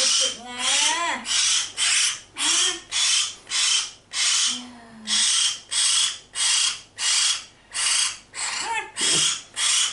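Baby hill myna giving loud, harsh, rasping begging calls over and over, about two or three a second, the noisy racket of a hungry chick. A woman's short moaning sounds come between some of the calls.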